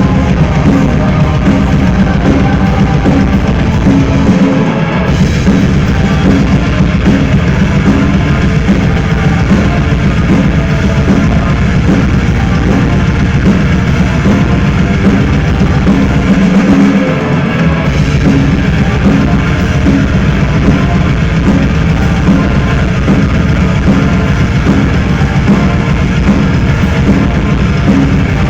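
A heavy-metal band playing live and loud during a soundcheck, with the drum kit prominent.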